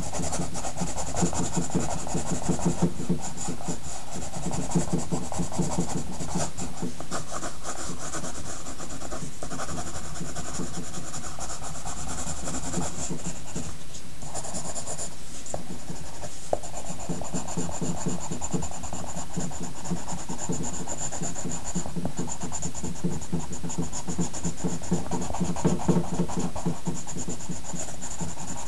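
Pencil rubbing and scratching on paper in a steady run of quick, dense strokes.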